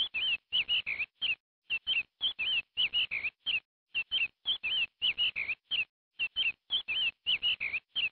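Bird-like chirping: quick high chirps in tight groups, the same phrase repeating about every two seconds like a looped sound clip.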